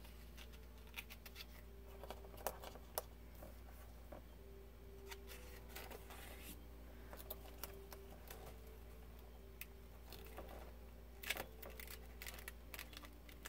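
Pages of a printed booklet being turned and handled: soft paper rustles with scattered light clicks and taps, a few sharper ticks, over a faint steady low hum.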